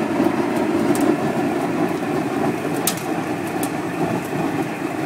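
Sawdust biomass burner firing a flame jet: a loud, steady rushing noise of the burning blast and its air blower, with a few sharp crackles.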